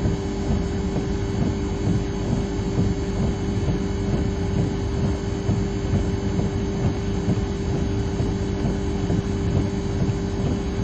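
Steady outdoor rumble with a constant hum, unbroken and with no sharp events.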